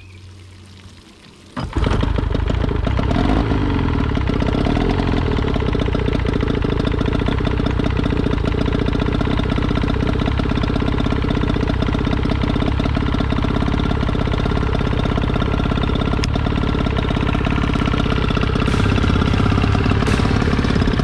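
2002 Johnson 25 hp outboard motor starting up about two seconds in, then running steadily at a fast idle, a little louder near the end.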